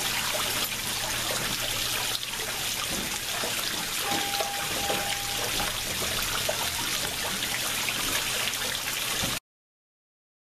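Water splashing and trickling steadily into a garden koi pond. It cuts off suddenly to silence near the end.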